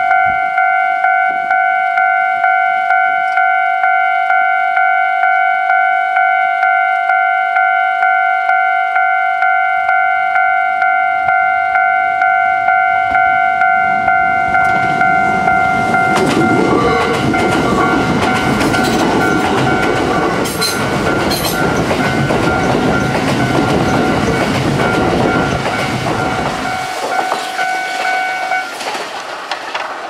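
Japanese level-crossing warning bell ringing in a steady, evenly repeating electronic tone. From about halfway, a Kintetsu 12200 and 22000 series limited express train passes close by, its wheels rumbling and clattering over the rails for about ten seconds. The bell stops near the end.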